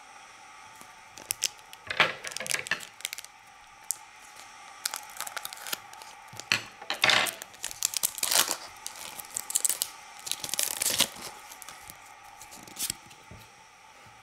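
Foil Pokémon booster pack wrapper crinkled and torn open by hand, in repeated bursts of crackling and tearing.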